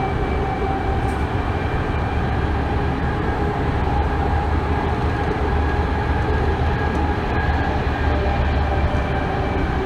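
BART A2 car running along the track, heard from inside its cab: a steady rumble of wheels on rail with a faint steady whine over it.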